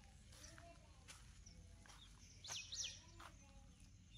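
Quiet outdoor ambience with a bird calling: a quick pair of sharp, high chirps about two and a half seconds in, over fainter, softer calls.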